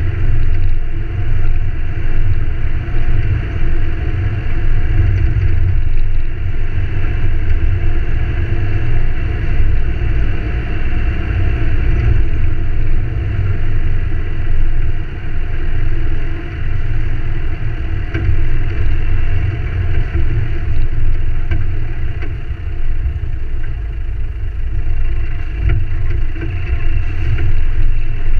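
A Ford Ranger 4WD driving along a dirt forest track, with steady engine and tyre noise under a heavy low rumble.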